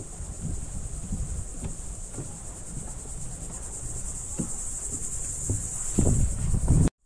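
A steady, high-pitched chorus of insects buzzing in the scrub, with irregular low thumps underneath. The sound cuts off abruptly near the end.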